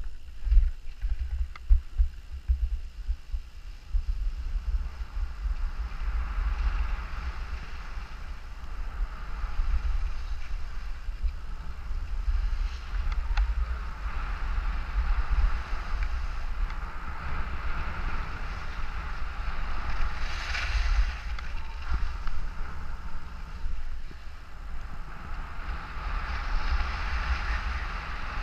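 Wind buffeting a camera microphone with a gusty low rumble, over the hiss of a snowboard sliding and carving on groomed snow, which grows louder about six seconds in and swells again near the end. A few sharp knocks come in the first couple of seconds.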